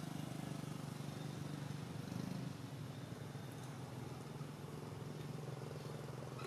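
Low, steady hum of a motor running, a little louder about two seconds in.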